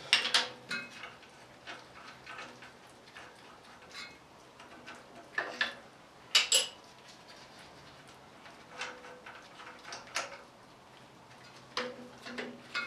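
Metal hand tools and sockets clinking and clanking on engine parts while the alternator is unbolted. The knocks are irregular and scattered, with the loudest clank about six and a half seconds in.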